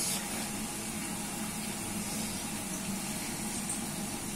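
Steady hiss of ridge gourd cooking in a clay pot over a lit gas burner, with a faint low hum underneath.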